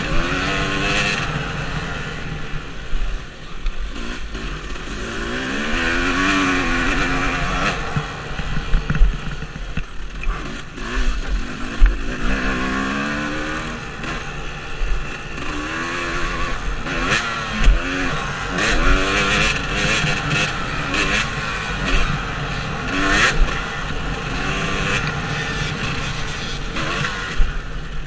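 Dirt bike engine revving up and dropping back again and again as the rider works through the gears on a motocross track, recorded on board, with a rushing noise and several sharp knocks over the bumps.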